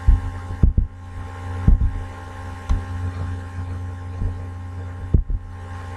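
Steady electrical hum from the recording setup, with a handful of dull low thumps at irregular intervals.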